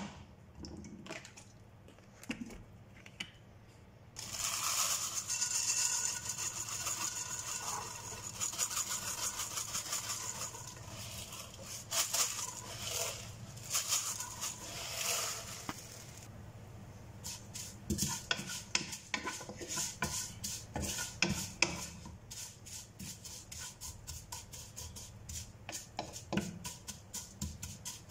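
Dry vermicelli sizzling and crackling as it is dropped into hot oil in a non-stick pot, starting about four seconds in. From a little past halfway, a utensil scrapes and clicks rapidly against the pot as the noodles are stirred and sautéed in the oil.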